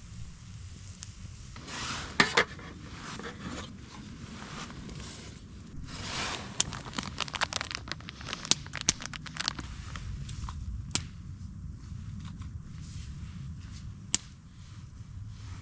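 Hands working with pizza-dough ingredients and packaging: crinkling, tearing and scraping, with a run of sharp little clicks and taps in the middle.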